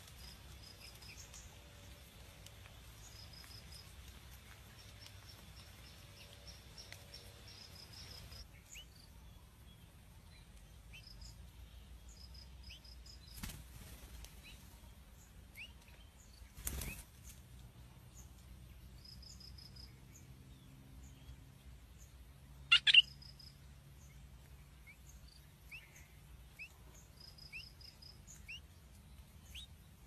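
A bird's wings flapping in a sharp double flutter about two-thirds of the way through, over a faint background of short high chirps in small groups and a few soft knocks.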